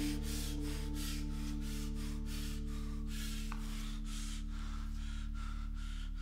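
Film score drone: a sustained low chord held steady under a rhythmic scraping, swishing noise that repeats about three times a second.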